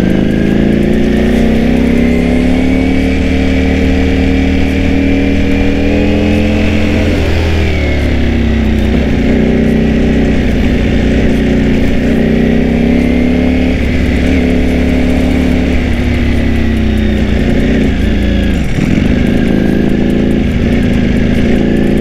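Ducati Panigale V4S's V4 engine, fitted with a dry clutch, pulling in second gear at low road speed, its note rising and falling with the throttle. The pitch climbs slowly for several seconds, drops sharply about seven seconds in as the throttle closes, then swells again, with another dip near the end.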